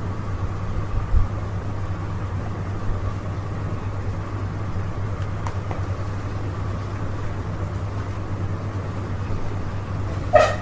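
Steady low background hum and hiss with a faint steady high tone running under it. There is a low thump about a second in, a faint click midway, and a short louder sound near the end.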